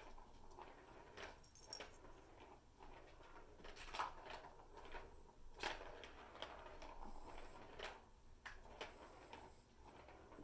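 Faint, scattered taps and clicks of kittens pawing and stepping on a plastic ball-track cat toy, the loudest two knocks about four and six seconds in.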